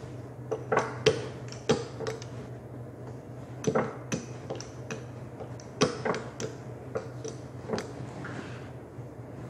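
Hands in thin plastic gloves pressing, patting and rolling dough on a countertop: light taps and clicks in small clusters every second or two. A steady low hum lies underneath.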